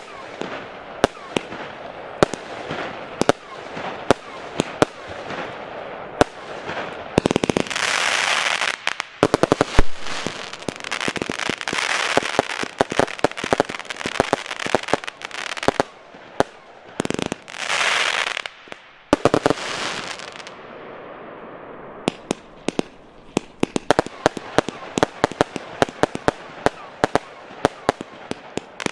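Piromax PXC309 Photon firework battery, a 236-shot cake of 20–30 mm tubes, firing shot after shot: a rapid string of sharp bangs and pops. Several times the shots merge into dense crackling that lasts a second or more.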